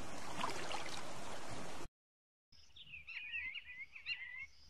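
A steady hiss of outdoor background noise that cuts off suddenly about two seconds in. After a short silence a bird calls in a quick series of short chirps that slide up and down in pitch.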